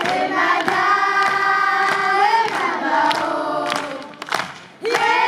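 A group of voices singing a chant-like chorus in long held notes, with scattered hand claps and a short break near the end before the singing resumes.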